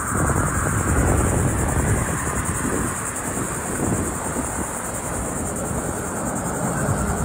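Steady outdoor background noise: an uneven low rumble under a continuous high-pitched buzz.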